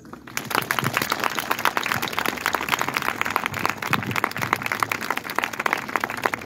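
Audience applauding: many hands clapping in a dense, irregular patter that begins right after the speech ends and fades near the end.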